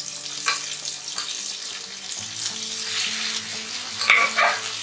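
Pieces of pressure-cooked, masala-coated beef sizzling as they are dropped into hot coconut oil in a nonstick frying pan, with a few clicks of the serving spoon against the pan.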